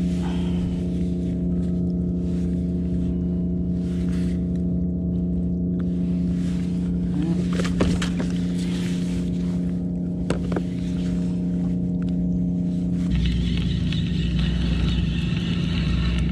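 Steady engine drone with an even pitched hum, and a few short knocks and clicks of handling. About thirteen seconds in, a deeper rumble and a higher whirring join it.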